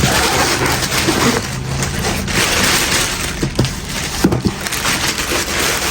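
Parcel packaging being handled, crinkling and crackling, with scattered clicks and knocks.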